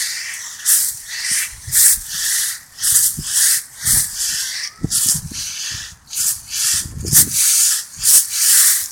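Rustling, hissing noise in repeated bursts, about two a second, with a few dull thumps.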